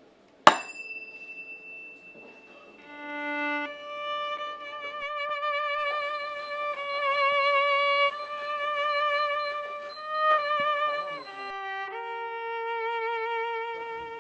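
A single sharp knock with a brief ringing tone about half a second in, then a violin playing slow, held notes with vibrato.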